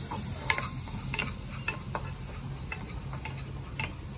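Garlic and onion sautéing in a frying pan: a soft sizzle with a utensil stirring, tapping and scraping against the pan in scattered short clicks, over a steady low hum.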